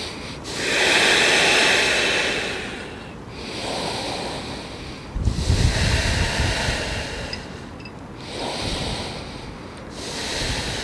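A person's slow, deep, audible yogic breathing while holding a pose: long hissing inhales and exhales of about two seconds each, one after another. The strongest exhale, about halfway through, also blows on the microphone as a low rumble.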